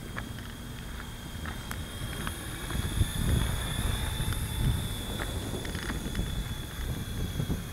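Wind buffeting the microphone of a small handheld camera, a low rumble that gets stronger about three seconds in, with scattered light handling clicks and a thin steady high-pitched whine.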